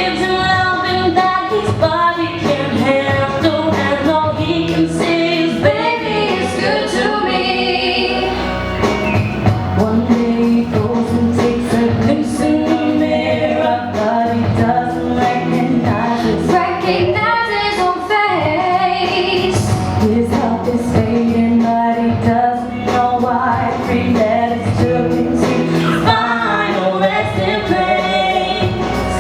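A show choir singing a pop song, with female voices to the fore, continuously through the stretch.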